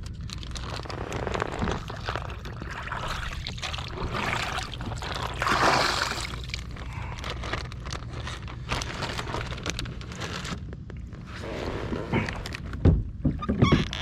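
Water sloshing and pouring as live shad baitfish are dumped out of their container over the side of the kayak, with a louder rush of pouring a little past the middle. Scraping and a few sharp knocks against the kayak follow near the end.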